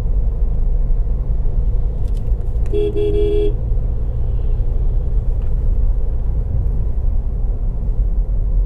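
Steady low road and engine rumble of a Ford EcoSport on the move, heard from inside the car, with a single short car-horn beep of under a second about three seconds in.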